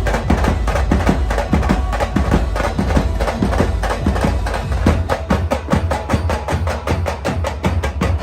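Dhol and tasha drums played in a fast, dense rhythm of sharp strokes over a heavy bass.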